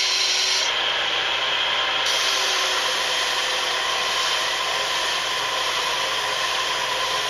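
A workshop power tool running steadily, a constant tone over a hiss, as it cuts a thick piece of river cane down into a flute block.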